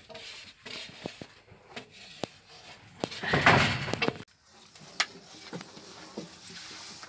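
Scattered sharp clicks from a wood-ember fire under a sac griddle, with a brief rushing noise about three seconds in that stops abruptly. After that, light knocks of a long wooden rolling pin rolling yufka dough on a wooden board.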